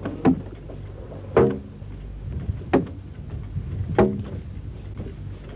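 Boatyard workers' rhythmic work chant: four short shouted calls, about one every second and a quarter, timing a gang's heave as they lever a heavy hardwood plank into place. Underneath is the steady low hum of an old reel-to-reel tape recording.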